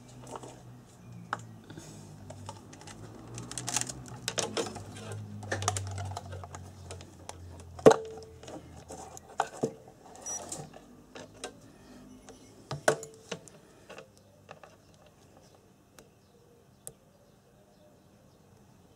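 Irregular clicks and light knocks of hands handling a digital multimeter and its test leads on a workbench, as the probes are set on an alternator rotor's slip rings for a resistance check; the sharpest knock comes about eight seconds in. A low hum runs under the first half, and the clicks thin out to a few faint ticks near the end.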